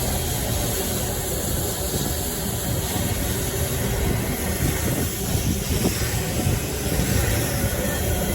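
Steady rumble of a vehicle in motion, even throughout with no distinct beats or impacts.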